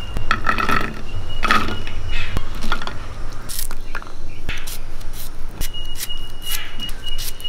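Wet shallots being swished and splashed in a clay bowl of water, then a small knife slicing shallots held against the thumb, with scattered sharp clicks as the pieces fall onto a clay plate.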